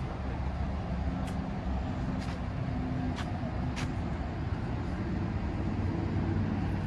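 Steady low rumble of idling bus engines, with a few faint ticks in the first half.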